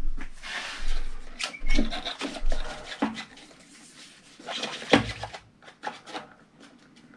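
Handling noise as a new water heater vent blower assembly is shifted and seated on top of the tank: rubbing and scraping with scattered knocks and clicks, the loudest knock about five seconds in.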